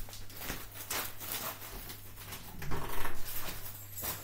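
Irregular rustling and knocking from objects being handled, loudest a little before three seconds in, over a steady low electrical hum.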